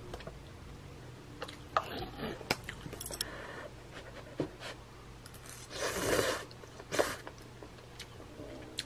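Eating cup noodles with metal chopsticks and a spoon: sharp utensil clicks and short slurping and breathing sounds, the loudest a brief breathy burst about six seconds in.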